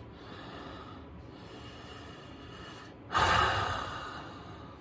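A man's sharp, noisy exhale through the nose about three seconds in, fading over about a second, the huff of someone straining at a stuck exhaust pipe; before it only a faint steady background.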